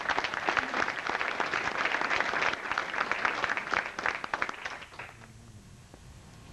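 Audience applauding: dense clapping from many hands that dies away about five seconds in, leaving quiet room tone.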